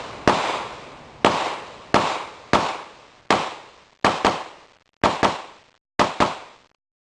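Glock 17 9mm pistol firing PMC 115-grain full metal jacket rounds: about eleven shots, single shots at first and then quick pairs, each followed by an echoing tail. The sound cuts off abruptly just before the end.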